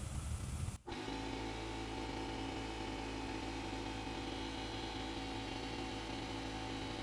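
A low rumble that breaks off just under a second in, followed by a steady hum made of several held tones.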